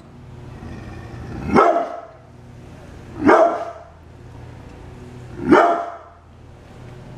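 Brindle pit bull barking three times, single deep barks about two seconds apart: guard barking at something outside the window.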